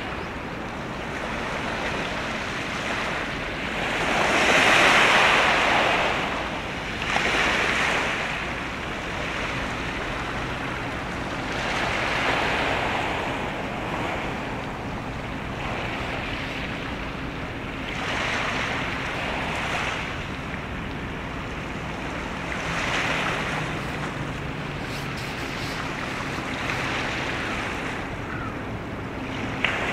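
Sea waves washing in, swelling and fading in repeated surges every few seconds, the loudest about five seconds in, over a faint steady low hum.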